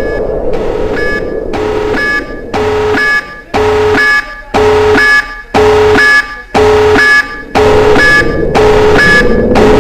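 Missile warning alarm sound effect: a harsh, buzzy alarm tone sounding in regular pulses about once a second over a continuous rumbling noise. The pulses become more separate and distinct after the first few seconds.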